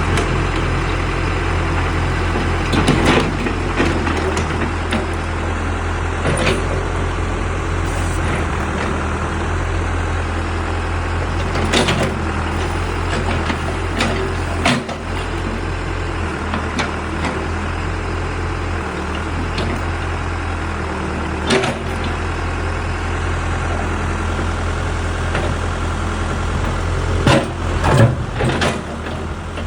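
Case 580 backhoe loader's diesel engine running steadily while it digs up a concrete floor, with scattered sharp clanks and knocks of the bucket on concrete and a quick cluster of them near the end.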